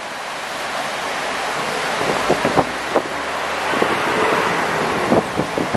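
Floodwater of the swollen Swat River rushing steadily, with a few short knocks about halfway through and again near the end.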